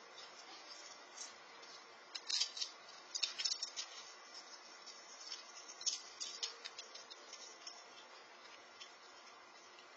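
Squirrel cracking and chewing an in-shell peanut: clusters of small, sharp crunching clicks, thickest from about two to four seconds in and thinning out after about seven seconds, over a steady faint hiss.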